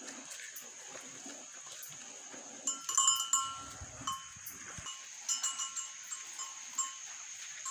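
Hand milking: quick rhythmic squirts of milk striking a metal pail, each stroke making the pail ring. The strokes come in two runs, the louder about three seconds in and another around five to six seconds, at roughly four or five squirts a second.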